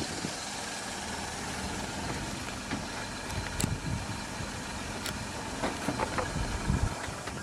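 A car engine running steadily, with a few sharp clicks and a stretch of stronger low pulses near the end.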